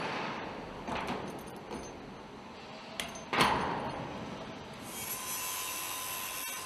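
Metal rigging hardware clanking and scraping as a shackle and a chain hook are handled, the loudest clank about three and a half seconds in. About five seconds in, an angle grinder starts grinding a steel pipe, a steady whine with a high ring.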